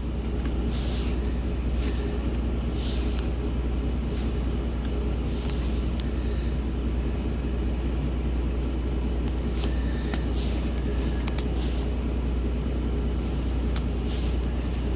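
Steady low rumble of an idling vehicle engine, with short papery rustles every second or two as trading cards are slid and flipped through by hand.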